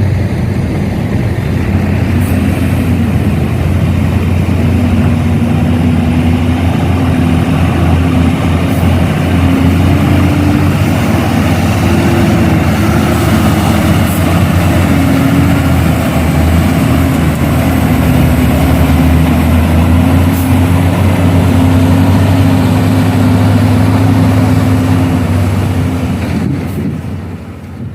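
Heavy diesel engine running steadily, with a deep hum under a tone that wavers slightly up and down in pitch; fades out near the end.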